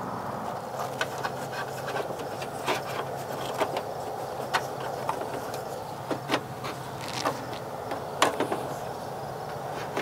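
Hands working a hood release cable through a car's radiator support: scattered light clicks and taps of the cable and nearby parts being handled, over a steady background hum.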